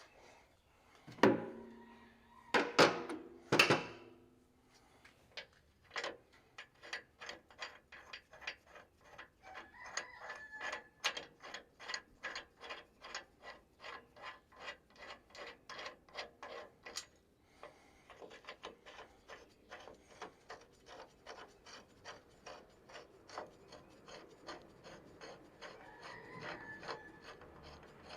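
A few loud knocks, then a hand tool working in short, even rasping strokes, about three a second, pausing briefly partway through.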